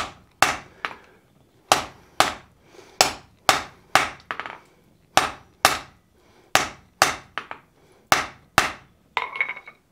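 Hand hammer blows on a welding-hot wrought iron hammer blank on a steel anvil, sharp ringing strikes at about two a second, often in pairs, with short pauses between groups. The blows are upsetting the bar, driving it shorter and thicker.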